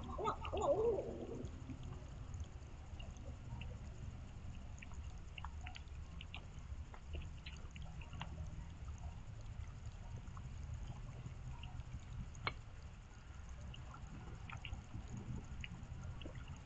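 A barred owl calling, a run of bending hoots that ends about a second and a half in. After it, scattered drips of rain fall over a steady low rumble.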